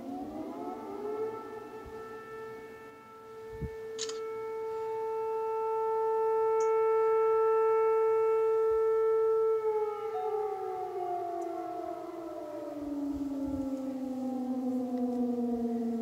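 Civil-defence air-raid warning siren wailing: its pitch rises at the start, holds one steady tone, then slowly falls from about ten seconds in and starts to rise again at the very end. A brief sharp click about four seconds in.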